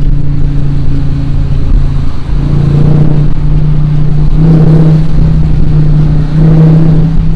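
Dodge Charger R/T's V8 with an aftermarket cold air intake running under way. The engine note steps up in pitch three times, about two, four and a half, and six and a half seconds in, with louder intake noise each time.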